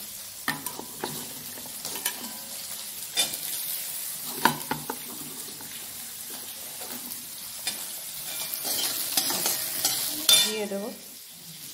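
Hot oil sizzling in a wok with garlic and onion frying, broken by clinks and scrapes of a metal spoon; the sizzle swells louder near the end as chopped onion and green capsicum go into the pan and are stirred.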